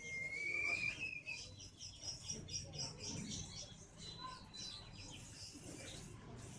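Small birds chirping: a long whistled note that rises slightly over the first second and a half, then a quick run of short, high chirps.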